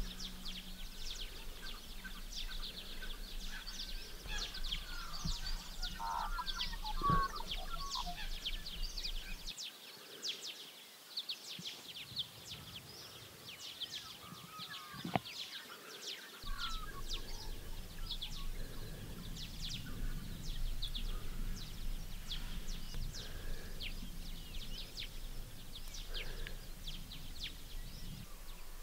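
Dawn chorus of many small birds chirping and calling in quick succession, with a low rumble underneath that drops out for several seconds in the middle.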